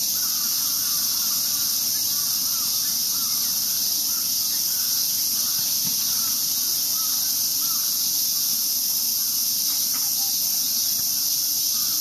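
Dense chorus of summer cicadas: a loud, steady, high-pitched shrill that does not let up, with a faint short call repeating more than once a second beneath it.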